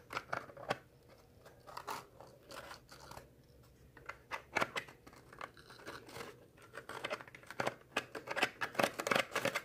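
Cardboard being handled, pressed and flexed by hand, giving irregular crackles and clicks that come thicker near the end.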